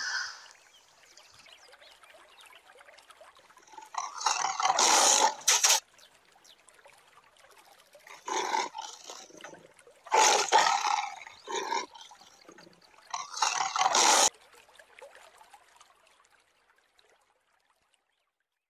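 Tiger roaring and snarling in four harsh bursts a few seconds apart, each one to two seconds long.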